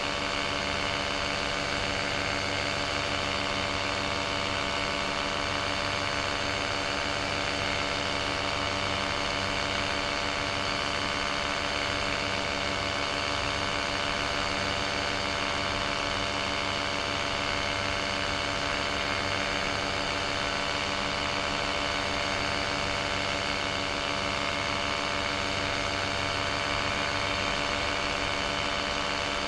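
Paramotor engine and propeller running steadily at cruise power in flight, an even drone that holds its pitch and level throughout.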